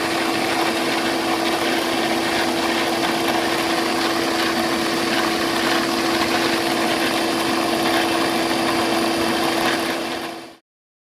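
Beaba Babycook baby-food maker running with a steady hum and hiss, one constant low tone under it, cutting off abruptly near the end.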